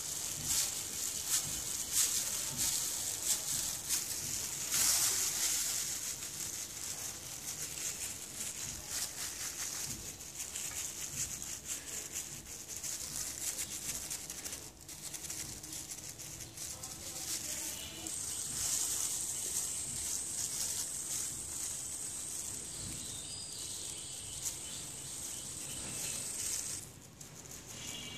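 Thin plastic food-prep gloves crinkling and rustling as hands press and shape soft mango halwa on a plate. Past the middle, a steady high-pitched whine joins in for several seconds and then stops.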